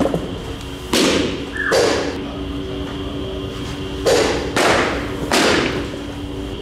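Pitched baseballs hitting a catcher's mitt: a series of about six sharp thuds, some in quick pairs, each with a short ring of room echo, over a faint steady hum.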